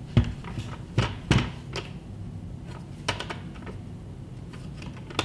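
Knocks and clicks of a plastic-and-aluminium four-bay hard drive enclosure being handled, turned round and set down on a wooden table. Several sharp clunks come in the first second and a half, then lighter clicks about three seconds in.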